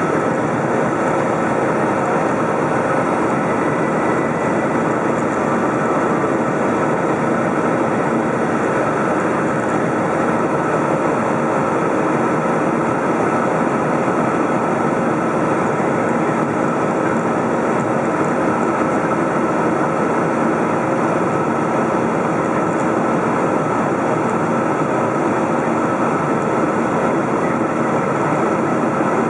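Steady cabin noise of a Boeing 737 in flight: the whoosh of air over the fuselage and the drone of its CFM56 jet engines, heard from a window seat, with a few faint steady tones running through it.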